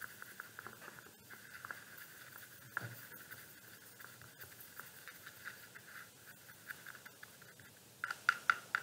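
Paintbrush stirring acrylic paint in the wells of a plastic palette: faint soft scraping and ticking, with a quick run of louder taps near the end.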